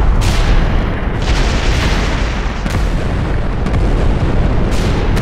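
Loud, unbroken rumble of bomb blasts, a heavy low booming with fresh blasts surging in about every one to two seconds.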